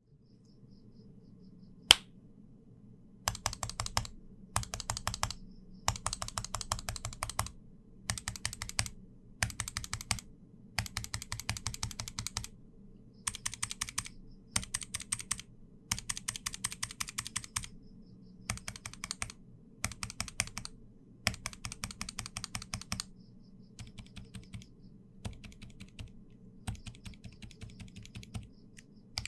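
Mechanical keyboard typing in short bursts of rapid keystrokes, on Gateron Ink V2 switches: linear Yellow and Red, clicky Blue, and linear Black. Near the end the typing turns much fainter on the dampened Ink V2 Silent Black switches. A single sharp click comes about two seconds in, before the typing starts.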